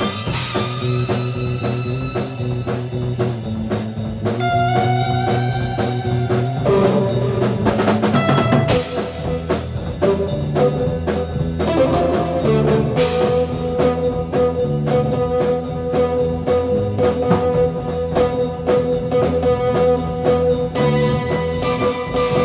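Improvised rock jam: guitar playing long, sustained and bending notes over a drum kit keeping a steady beat. About halfway through, the guitar settles onto one long held note.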